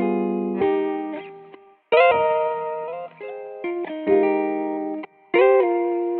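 Background music: plucked guitar-like notes in short phrases, each starting sharply and dying away.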